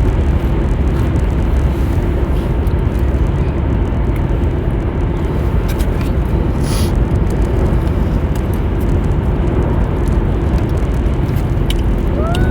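Steady low road and engine rumble heard from inside a car's cabin while driving, with a brief hiss about seven seconds in.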